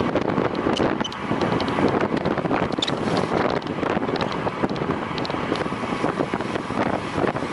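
Wind buffeting the microphone of a camera on a moving bicycle: a dense, steady rush with many short gusts and crackles.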